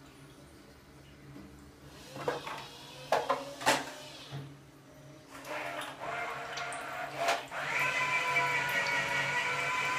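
Automatic self-cleaning toilet seat running its cleaning cycle: a few sharp mechanical clunks as the cleaning arm comes down onto the seat, then the drive motor running as the seat turns under the arm, settling into a steady whine about three-quarters of the way in.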